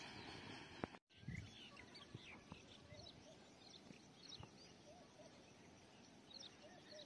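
Birds chirping faintly in many short calls, some high and some lower, over a quiet rural background. A steady hiss fades out at a brief dropout about a second in.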